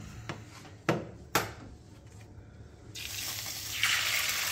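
A duck egg tapped twice, sharply, on the rim of a frying pan to crack it. About three seconds in it drops into hot bacon fat and starts sizzling, louder near the end.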